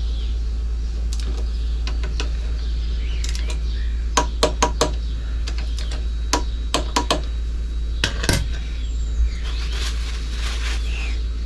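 Sharp metallic clicks from a wrench as the brake caliper bolts are tightened to 28 newton metres. A quick run of four clicks comes about four seconds in, then scattered single clicks, all over a steady low hum.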